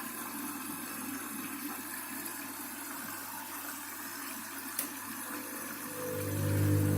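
Water hissing as it runs into a Candy washing machine's drum during the rinse fill, with a single click about five seconds in. Near the end a steady low hum sets in and grows louder.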